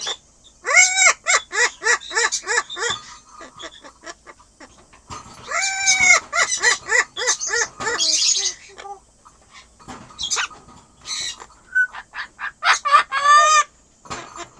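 Amazon parrot laughing: bouts of quick, rhythmic ha-ha-ha calls, about four a second, with short pauses between bouts and a longer call near the end.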